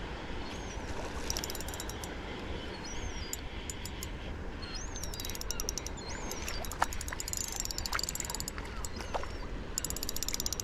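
Shimano Exsence 3000 spinning reel's drag clicking in quick bursts as a hooked fish pulls line while it is being played in, over a steady rush of wind and sea.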